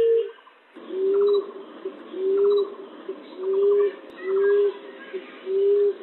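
Common emerald dove cooing: a low, soft coo of about half a second, repeated roughly once a second, each note rising slightly. Fainter chirps and short descending trills from other birds sound in the background.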